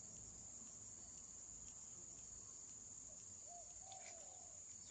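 Faint, steady high-pitched drone of insects, with a few faint bird chirps about three and a half to four seconds in.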